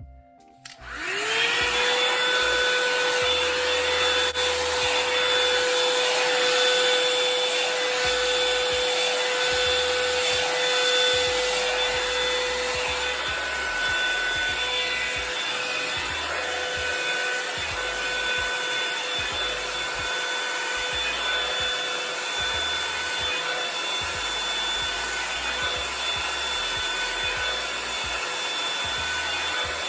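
Revlon hair dryer brush switched on about a second in, its motor rising quickly in pitch up to speed, then blowing steadily with a loud rush of air.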